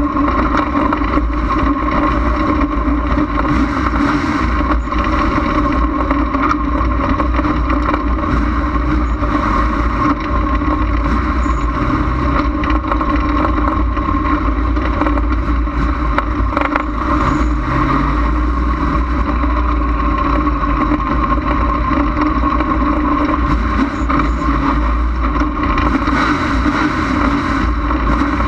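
Dirt-track race car's engine running hard at a steady pitch, heard from inside the car's cockpit during racing laps.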